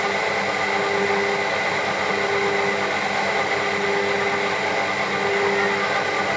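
Stand mixer motor running steadily at its low speed, a dough hook turning through flour and liquid as a bread dough first comes together. A constant hum with a steady whine.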